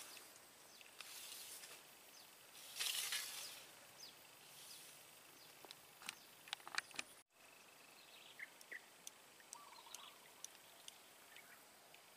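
Quiet outdoor ambience: faint hiss with a brief rush of noise about three seconds in, a few light clicks, and faint short chirps of birds or insects in the second half.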